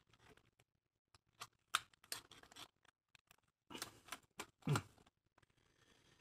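Scattered light clicks and taps from a cordless drill being handled at a workbench, with a small cluster of clicks near the end.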